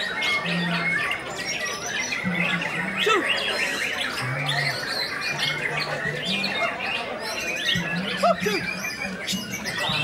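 White-rumped shama singing amid a dense chorus of other caged songbirds: a continuous tangle of overlapping whistles, chirps and trills.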